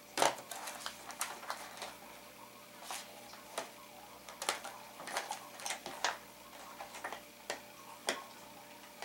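Irregular light clicks and taps, a dozen or so sharp ones, from metal multimeter probe tips touching and shifting on the pins of a TV's LED backlight strip connector during a strip test.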